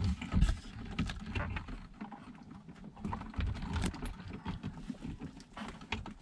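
Hands working a stiff plug into the VHF radio's extension speaker socket behind the panel: irregular small clicks, taps and scrapes with low bumps.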